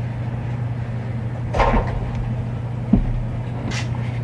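Small handling noises of a metal butane lighter and a small screwdriver on a tabletop: a short scrape about a second and a half in, a knock at about three seconds and a brief rustle near the end, over a steady low hum.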